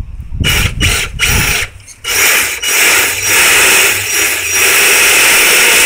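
Electric drive motor and gears of a 6x6 RC rock crawler whirring in short throttle blips, then running steadily under load for about four seconds as it climbs over rocks.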